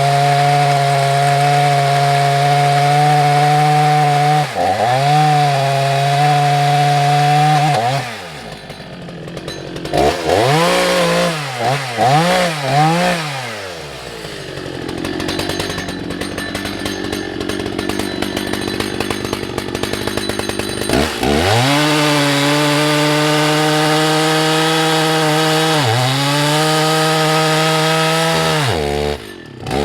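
Husqvarna 181SE two-stroke chainsaw sawing through a large beech log, held at high revs in the cut. About a third of the way in it backs off and is blipped a few times. It drops to a quieter stretch, then goes back to full revs in the cut for the last third, with two brief dips in speed.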